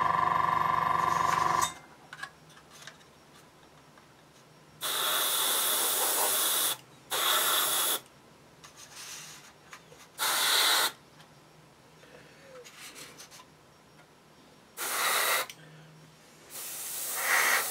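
A small airbrush compressor (an AS186) hums for the first second and a half, then cuts off. A gravity-feed airbrush then sprays paint in five short hissing bursts of half a second to two seconds each, with quiet pauses between.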